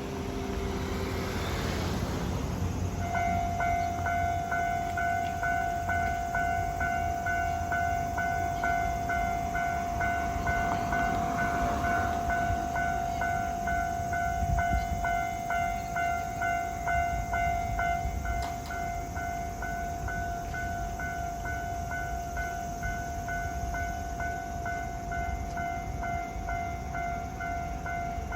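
Japanese level crossing alarm starting up about three seconds in and ringing a rapid, even electronic ding. It plays over the low rumble of a Keisei 3600 series train, which eases off about eighteen seconds in.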